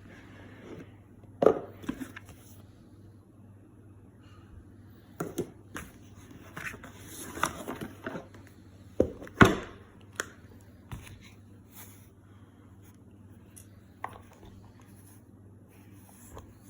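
Irregular knocks, clicks and scrapes of objects being handled, the loudest knocks about a second and a half in and about nine seconds in, over a low steady hum.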